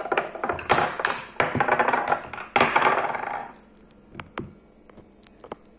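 Metal spoon clinking and scraping against ceramic dishes as sliced cucumber is moved into a bowl: a busy run of clatter for about three and a half seconds, then a few light clicks.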